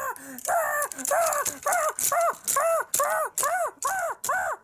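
A child's high voice crying out over and over in short wordless wails, about two a second, each rising then falling in pitch: the defeated spider villain's cries.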